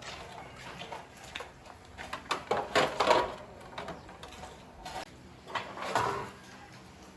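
Scraping and clattering of handled objects, with two louder stretches about two and a half seconds in and again about six seconds in.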